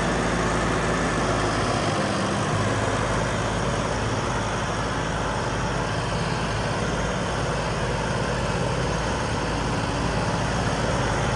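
John Deere CRDI diesel tractor engine running steadily in first gear, a low, even note with no change in revs.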